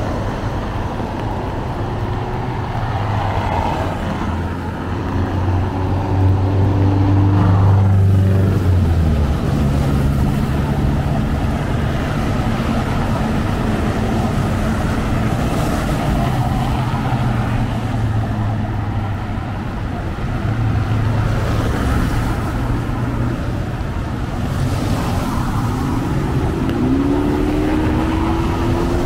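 Street traffic on a wet city boulevard: vehicle engines running and passing over a steady hiss of tyres on the wet road. Near the end one engine rises in pitch as the vehicle accelerates, then drops.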